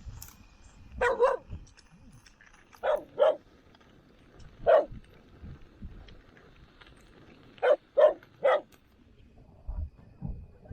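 A dog barking, about eight sharp barks in short groups of one to three.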